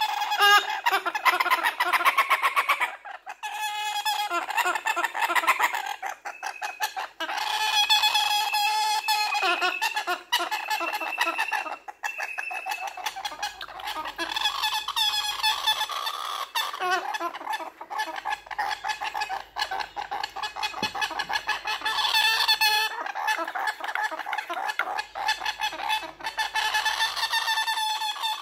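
A baby galah (rose-breasted cockatoo) giving raspy, rapidly pulsing food-begging calls, nearly without pause, while being syringe-fed.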